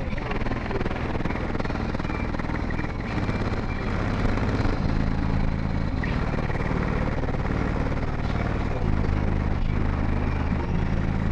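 Eight 12-inch Deaf Bonce subwoofers in a car playing loud bass notes that step between a few low pitches, with a dense rattling buzz over the top from the vehicle shaking.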